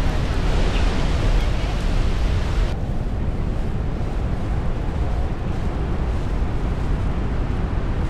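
Wind buffeting the microphone: a steady low rumble under a rushing hiss. About three seconds in, the sound changes abruptly: the hiss drops away and mostly the low rumble goes on.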